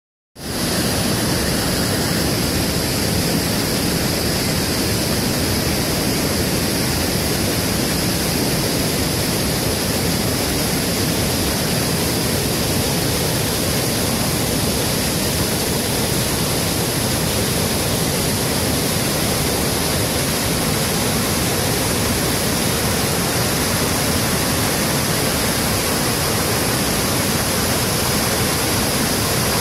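Steady rushing of river water, an even, unbroken noise with no change in level.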